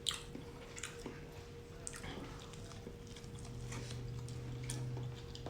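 Faint mouth sounds of a person chewing food, with small scattered clicks and smacks. A low steady hum joins in about halfway through.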